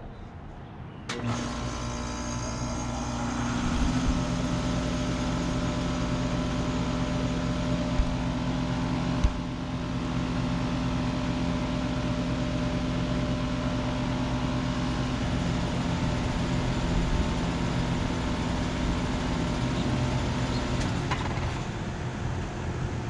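A Carrier Comfort central air conditioner condensing unit starts up about a second in with a sudden hum, its fan noise building over the next few seconds, then runs steadily. Two sharp knocks come around the middle. Near the end part of the hum cuts out and the sound eases.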